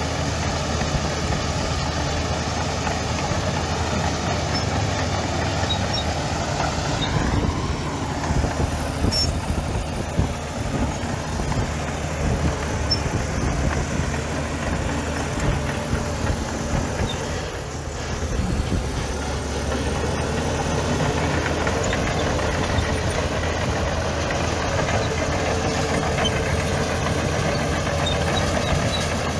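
Heavy machine's diesel engine running steadily, its pitch shifting briefly twice as the revs change.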